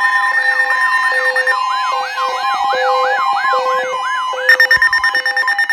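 Emergency alert alarm tones: a siren-like tone sweeping up in pitch over and over, about three times a second, layered over steady electronic tones. About four and a half seconds in it changes to a fast, rapid-fire pulsing.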